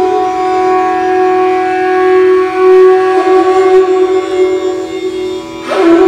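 Bansuri, the Indian bamboo flute, holding one long sustained note that wavers slightly about halfway through, then a quick ornament and a fresh note near the end, ringing in the echo of an empty stone water tank.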